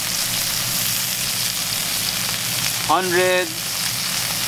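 Elk filet mignon steaks sizzling steadily in hot butter and garlic in a cast-iron skillet.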